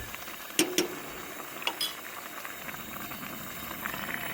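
Thick orzo bubbling as it simmers in a pot on a camp stove, with a few sharp knocks in the first two seconds.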